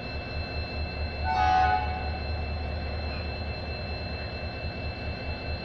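A single short blast of a train horn, about half a second long, a little over a second in. It sounds over a steady low rumble and two thin, steady high-pitched tones.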